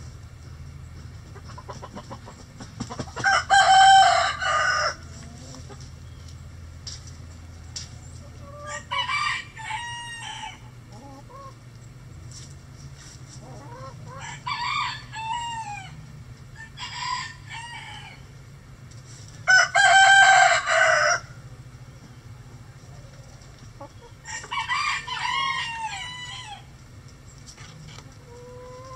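Roosters crowing about six times in turn, each crow lasting one to two seconds; the two loudest come about four seconds in and about two-thirds of the way through.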